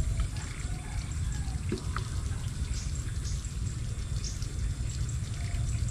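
Water trickling and dripping in a small ditch, with faint scattered ticks over a steady low rumble.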